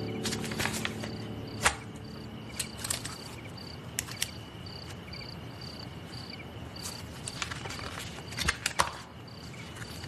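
Crickets chirping at an even pace, about two chirps a second, over a fainter steady high trill. Sheets of paper rustle and tap on a desk a few times.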